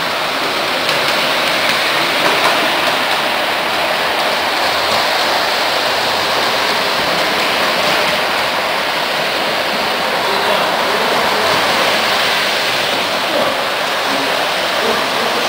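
Steady rushing rumble of O gauge model train cars rolling along metal track, an even noise with no breaks.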